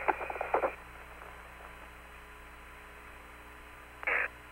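Steady hum and hiss of the Apollo 16 air-to-ground radio link between transmissions. A short burst of crackling comes right at the start, and another brief burst of radio noise about four seconds in.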